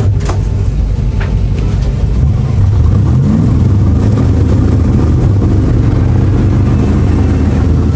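BRDM-2 armoured car's GAZ-41 V8 petrol engine revving loud, rising in pitch about two and a half seconds in and held at higher revs. The vehicle is stuck on its belly and not moving under the power.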